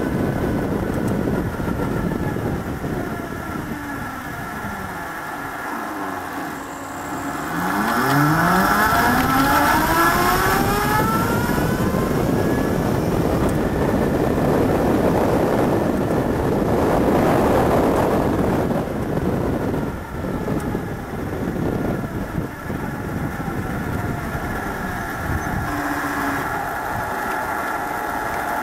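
Electric motorcycle's axial-field DC motor drive whining as the bike rides: the whine falls in pitch as it slows over the first few seconds, then climbs steeply as it accelerates from about eight seconds in. Wind and road rush swell loudest a little past the middle.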